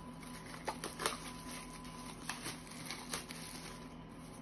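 Plastic wrapping and a stack of glossy printed cards being pulled open and handled: light rustling with a handful of short, sharp crinkles and snaps.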